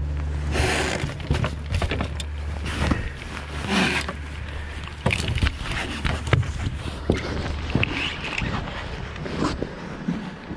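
A boat engine running with a steady low hum, which stops about eight seconds in, with scattered light knocks over it.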